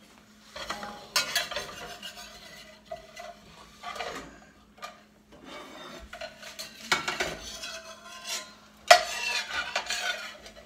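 Metal spatula scraping and clinking against a stainless steel frying pan, worked under a fried egg to lift it free, in several separate strokes with pauses between, the loudest near the end. A faint steady hum runs underneath.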